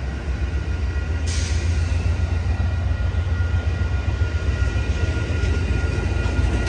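Amtrak Superliner bilevel passenger cars rolling slowly past close by: a steady low rumble of wheels on rail, with a faint high squeal joining about a second in.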